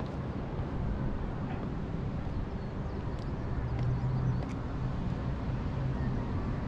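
Wind buffeting the microphone on an exposed seaside ridge: a steady, fluctuating low rumble, with a few faint clicks in the middle.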